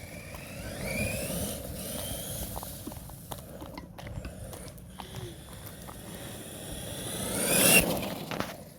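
FTX Outlaw electric RC car driving, its motor and gearing whining up and down in pitch as it speeds up and slows, with small clicks and scrapes from the wheels on the ground. The whine swells loudest about seven and a half seconds in, then fades.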